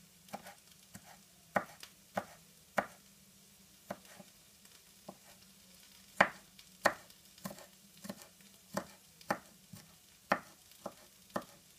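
Kitchen knife slicing garlic cloves on a wooden cutting board: a series of sharp single knocks of the blade on the wood, about one to two a second, coming more regularly in the second half.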